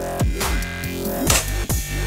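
Electronic background music with a heavy beat, held synth tones and falling bass sweeps.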